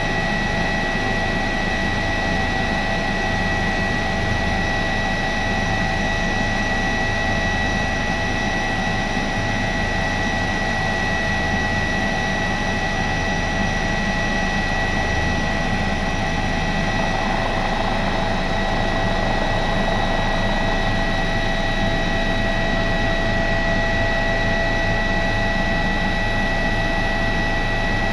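Airbus H145 twin-turboshaft helicopter heard from inside the cockpit during takeoff and climb-out: a steady high whine from the turbines and gearbox over a low, pulsing rotor rumble.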